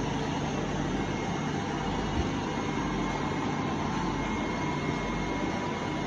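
Steady mechanical hum and hiss with a faint high whine, holding an even level throughout.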